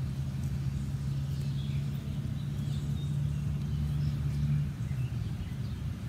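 Steady low mechanical hum, like a motor running nearby, that drops away about four and a half seconds in, with faint bird chirps over it.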